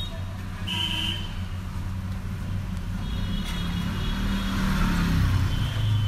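Low, steady motor-vehicle engine hum of road traffic, swelling about four to five seconds in as a vehicle passes, with short high-pitched tones over it.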